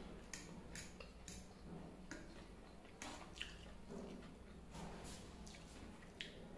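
Close-up wet chewing and smacking of a mouthful of chicken chow mein noodles, heard as a string of short wet clicks, with a fork now and then scraping and clicking on a steel plate. Faint, over a low steady hum.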